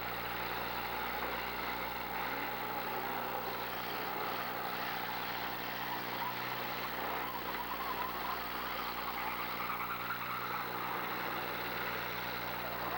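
Demolition derby cars' engines running and revving together, a dense steady mix with no single crash standing out, over a steady low hum.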